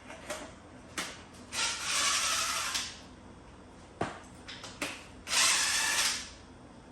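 A power tool running in two short bursts of about a second each, with sharp metal clicks and knocks between them as parts are handled.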